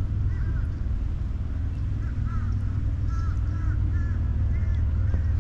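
Wind rumbling on the microphone, with birds giving a string of short, arched calls in the background.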